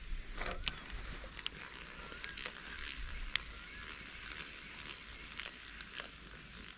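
Quiet outdoor ambience with scattered sharp clicks and taps and a few short, wavering chirping calls.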